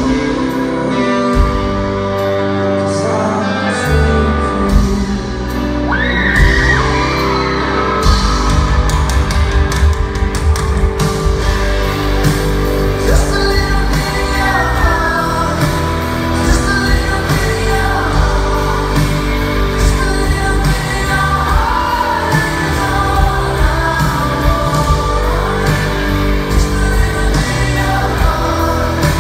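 Male singer and a live rock band (guitars, keyboards, drums) performing a pop ballad, recorded from the audience in a large hall. The singing comes in about six seconds in, and the drums and bass fill out about two seconds later.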